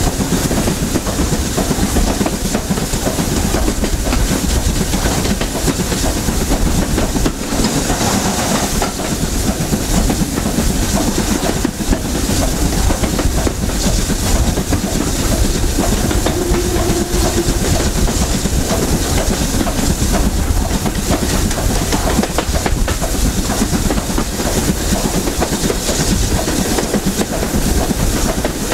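Train hauled by a BR Standard Class 7 'Britannia' Pacific steam locomotive running along the line, heard from just behind the engine: a steady, loud mix of locomotive noise and carriage wheels on the rails.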